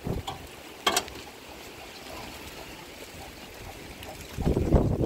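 A sheet-metal door being unlatched and opened: a sharp click of the latch about a second in, then a loud low rumble near the end as the door is pulled open, over the steady sound of falling rain and trickling water.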